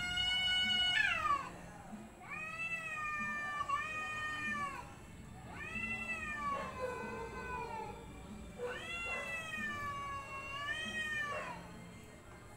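Street cats yowling at each other in a fight standoff: a long held howl that slides down and breaks off about a second in, then three long wavering yowls, each rising and falling over two seconds or more.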